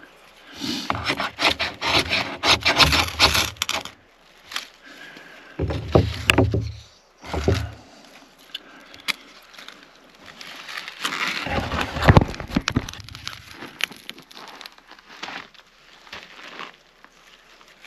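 Dry branches and twigs cracking and snapping in three bouts of dense, sharp breaks, with scattered smaller snaps between them.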